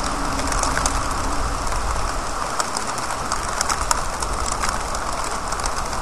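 Rain falling on a wet city street, a steady wash of noise with many sharp drips tapping close by. A car's tyres hiss along the wet road at the start.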